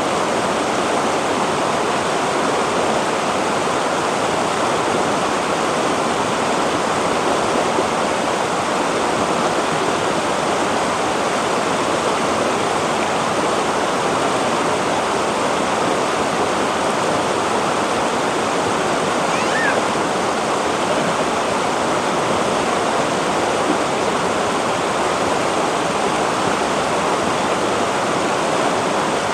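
Shallow rocky river rushing steadily over boulders and small cascades.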